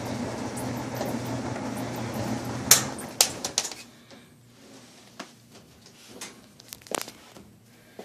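1977 Frigidaire clothes dryer running with a steady hum as its drum tumbles towels and sheets; about three seconds in the door is opened with a couple of sharp clicks and the machine stops, leaving only a few faint knocks.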